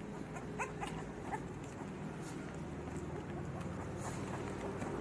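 Labrador puppies whimpering in several short high squeaks in the first half, over a steady low hum.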